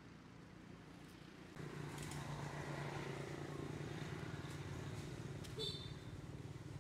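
A motor vehicle engine running with a steady low hum, coming in about a second and a half in. A brief high chirp sounds near the end.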